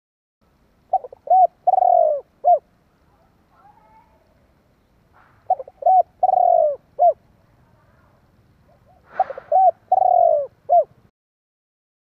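Spotted dove cooing its song three times, about four seconds apart: each phrase is two short coos, a long drawn-out falling coo, then a short final coo. This is the male's lure call, used to stir up other doves.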